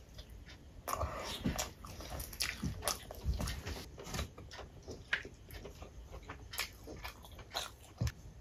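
Close-miked eating sounds: wet chewing and lip-smacking as chicken curry meat is bitten off the drumstick and chewed. Irregular clicks and smacks, with a few soft low thumps.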